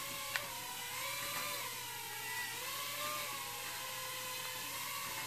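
Syma X12S nano drone hovering, its four tiny motors and propellers giving a steady high whine whose pitch wavers up and down as the throttle changes.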